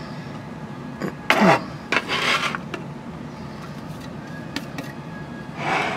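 A few short scraping and rubbing strokes with a click or two: a metal scraper pushing chopped celery and parsley across a cutting board into a mixing bowl.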